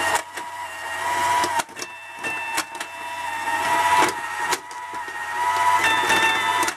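Tomy Atomic Arcade tabletop pinball in play: its electronic sound effect, a steady multi-pitched tone that swells and breaks off every second or two, with sharp clicks of the steel ball hitting the bumpers and flippers.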